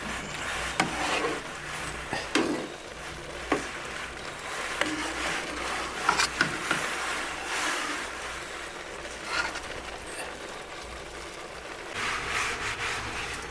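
Food-preparation handling: irregular scraping and rubbing, with a few sharp knocks scattered through.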